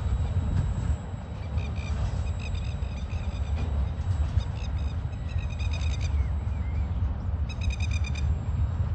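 Low, steady rumble of a freight train's container wagons rolling away on the track. Over it, a bird calls several times in rapid runs of short, sharp repeated notes.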